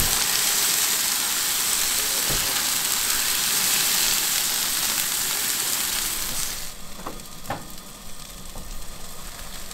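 Food frying with a steady, loud sizzle that cuts off abruptly about seven seconds in, followed by a couple of faint clicks.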